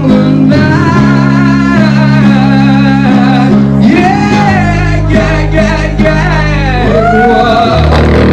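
Rock music with a guitar and a sung vocal. The singer holds long notes that waver in pitch over sustained low guitar notes.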